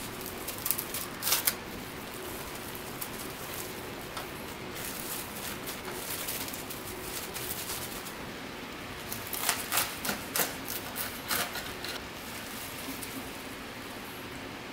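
Plastic cling wrap crinkling and crackling as it is folded and pressed around a sandwich, in two bunches of sharp crackles: about a second in and again around the ten-second mark.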